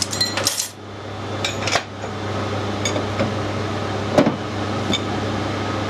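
Brass oiler parts clinking and knocking as they are handled, a handful of sharp metallic taps, the loudest about four seconds in, over a steady workshop hum.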